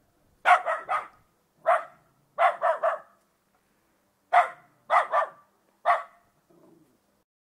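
A dog barking, about a dozen short sharp barks in quick groups of one to three with short pauses between them.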